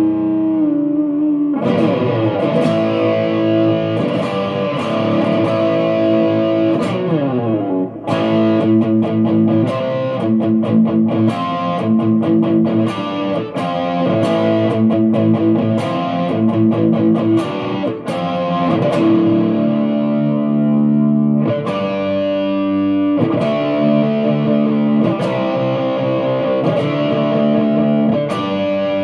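Electric guitar played through a NUX Plexi Crunch overdrive pedal, switched on, giving a crunchy distorted tone. It moves between ringing chords and quicker picked riffs, with a few slides.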